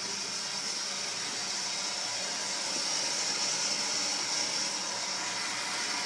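Steady hiss of water running in through a steam boiler's automatic water feeder as it slowly refills the drained boiler.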